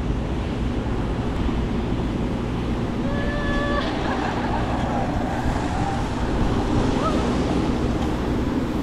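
Steady rumble of wind on the microphone mixed with road traffic. About three seconds in, a brief high-pitched tone sounds.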